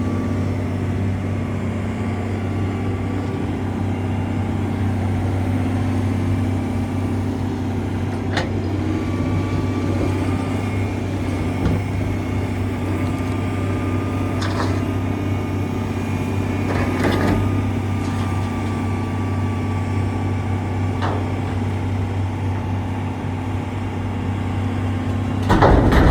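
Komatsu PC490LC-11 excavator's diesel engine running steadily under load as it digs and loads a truck, with hydraulic whine coming and going as the boom and swing work. A few sharp clanks of the bucket and material sound through it, and a louder burst of clatter near the end.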